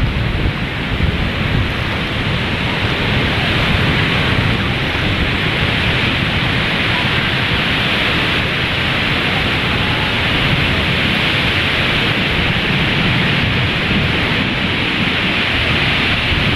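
Strong wind buffeting a phone's microphone over the steady rush of surf breaking on a sandy beach, a loud, even hiss with a fluttering low rumble.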